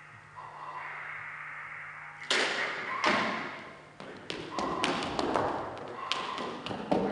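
A soft breathy hiss, then about two seconds in a sudden scraping burst and a quick, irregular run of taps and thumps: footsteps and a small box dragged across a wooden stage floor.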